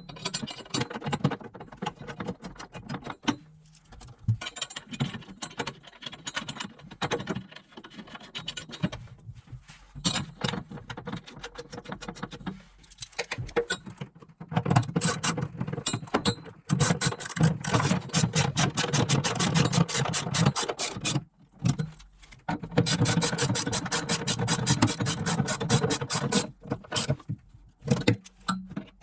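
Hand tools working on battery hold-down hardware: metal clinking and scraping, then long runs of rapid, even ratchet clicking from about halfway through, stopping and starting as the nuts are run down.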